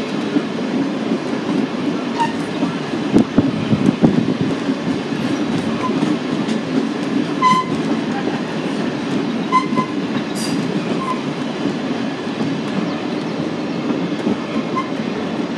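Steady rumble of a heritage passenger train rolling along the track, heard from on board, with a few louder knocks about three to four seconds in.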